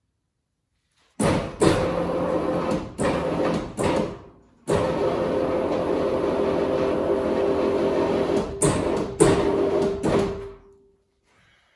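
Electric-hydraulic pump motor of a two-post car lift running as the car is raised, with a steady hum. Several loud clanks come from the lift, and there is a short pause near the middle. The motor winds down with a fading tone near the end.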